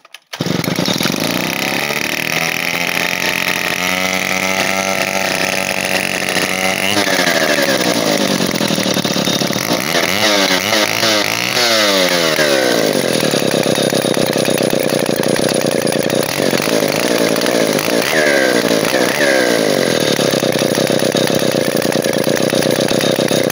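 Vintage Stihl Contra Lightning two-stroke chainsaw firing up, its engine speed climbing over the first few seconds. It is then revved up and down several times and settles into steady running with two short blips of throttle.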